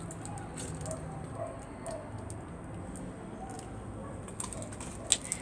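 Faint scattered clicks and taps of a utensil against a slime pot as slime is mixed, with a few sharper clicks near the end.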